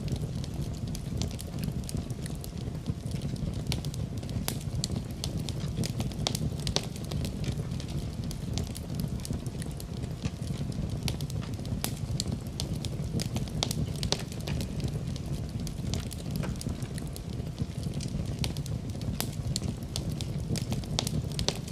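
Wood fire crackling in a fireplace: a steady low rumble of flames under many small irregular pops and snaps.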